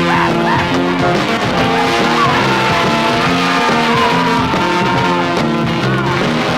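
1967 garage psych rock recording playing: a band with guitar over a steady beat, with a long held, gliding lead line in the middle.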